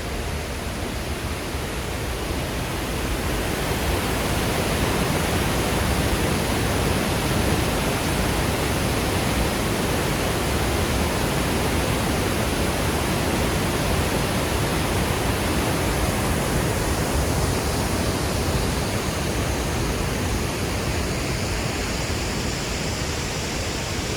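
Steady rushing of a large waterfall running high after rain, growing a little louder a few seconds in.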